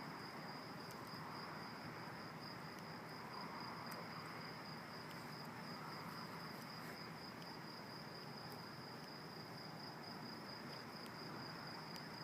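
Crickets chirping in a steady, high-pitched trill, with only a faint background hiss behind them.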